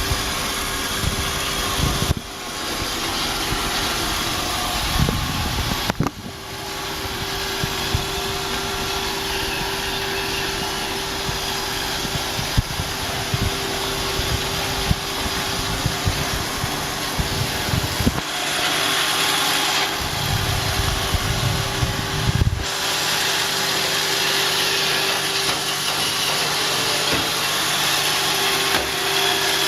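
Roomba robot vacuum running: a steady motor whine over a wide suction hiss, with a low rumble that comes and goes and a brief dip twice in the first six seconds.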